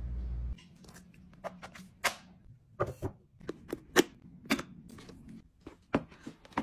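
A hand handling a leather handbag with a gold metal clasp: a string of sharp clicks and taps from the clasp and flap, about ten in all, the loudest about four seconds in. A low hum cuts off suddenly about half a second in.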